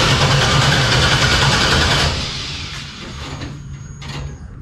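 Starter cranking the swapped-in 5.3-litre LS V8 of a 1957 Chevy Bel Air without it catching, then cutting off about two seconds in. The engine has sat for a long while and is slow to fire.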